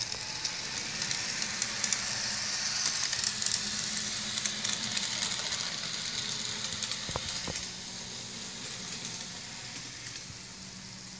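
Model railway locomotives running along the layout's track: a steady hiss of running noise dotted with fine clicks, over a low hum. It eases off a little after about eight seconds.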